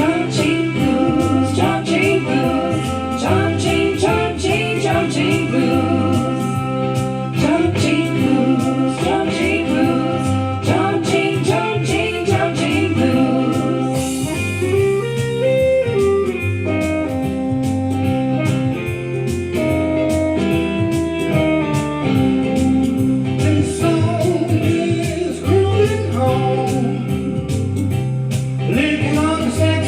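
A blues song playing: guitar over a stepping bass line and a steady beat, with singing.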